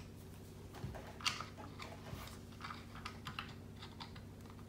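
Faint, scattered clicks and light rattles of a driver and small plastic RC car parts being handled as screws are backed out of the electronic speed control's mount, with one sharper click about a second in.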